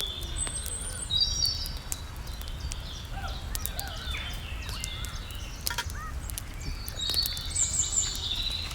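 Birds chirping and trilling in short calls, over a steady low rumble, with scattered small clicks and ticks.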